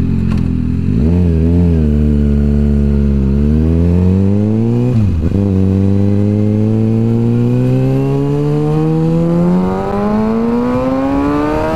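Kawasaki ZX-6R 636 inline-four through a full M4 aftermarket exhaust, pulling away from a stop and revving up hard. It drops in pitch at an upshift about five seconds in, then climbs steadily through the next gear until another shift at the very end.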